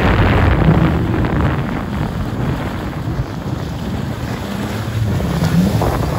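Jet ski running over the water, its engine rumble mixed with rushing water and heavy wind buffeting the microphone.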